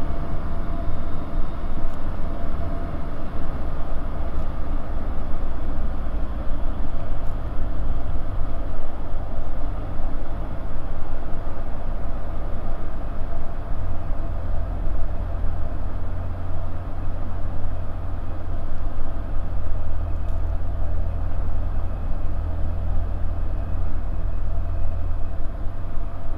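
Bristell light aircraft's piston engine and propeller droning steadily, heard inside the cockpit. The low rumble grows stronger about halfway through.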